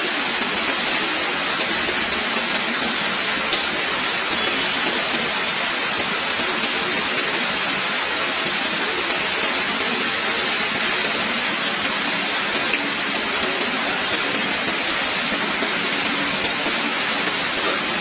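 Heavy rain falling steadily: a dense, even hiss of countless drops with no pauses.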